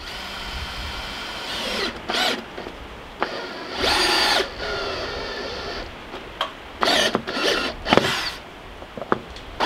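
Cordless DeWalt power driver sinking screws into wooden floor framing in a series of start-stop bursts, the loudest about four seconds in and three short ones near the end.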